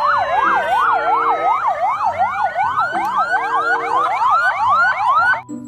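Several ambulance sirens sounding at once: a fast yelp sweeping up and down about three to four times a second over slower wailing tones. The sirens cut off abruptly near the end.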